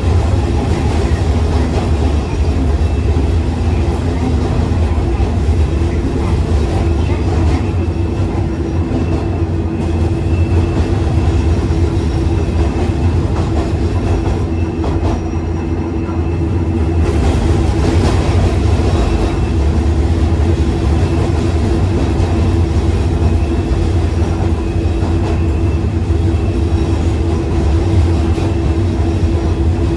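Hankai Tramway streetcar with nose-suspended traction motors running, heard from inside the car: a steady low rumble of wheels on rail with the motors' steady gear whine. The higher part of the sound eases briefly a little past halfway, then picks up again.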